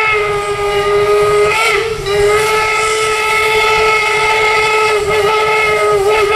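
Replica 4-4-0 steam locomotive Leviathan 63's steam whistle blowing one long, loud chord, with steam hiss beneath it. The tone wavers and briefly breaks about two seconds in and again near the end before sounding on.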